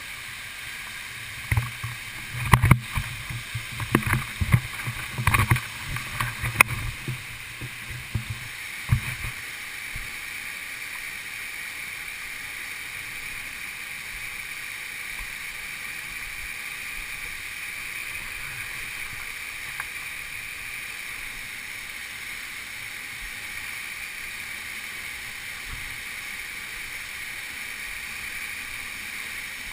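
Steady rush of water from a waterfall or stream. For the first nine seconds a run of knocks and thumps sits over it.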